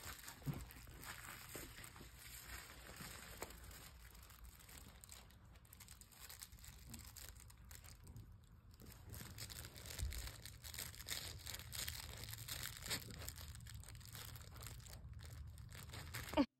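Two miniature dachshund puppies chewing and tugging at a green toy together in a fabric dog bed: faint, irregular chewing and rustling with scattered small clicks, and one louder knock just at the end.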